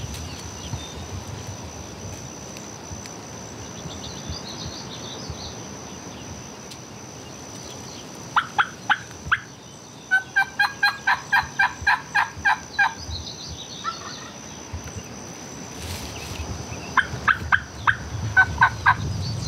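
Turkey yelping in sharp, evenly spaced notes: a short run of about four, then a longer series at about four a second, and another run near the end.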